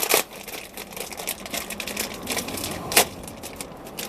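Dryer vent cover being handled and fitted: a run of small clicks and taps, with a sharp knock at the start and a louder one about three seconds in.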